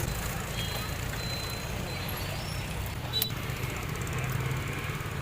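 Steady low rumble of street traffic, with one sharp click about three seconds in.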